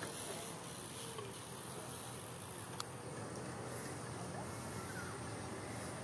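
Steady outdoor ambience: insects chirping high up over a low, even rumble of distant traffic, with a single sharp click about three seconds in.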